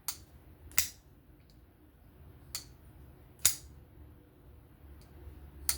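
Miguron Moyarl folding knife being opened and closed by hand, giving five sharp clicks spaced unevenly, as the blade swings and locks on its freshly tuned pivot.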